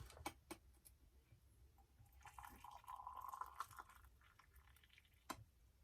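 Faint handling clicks, then a soft liquid sound for about a second and a half as a tea bag goes into a mug of hot water to steep.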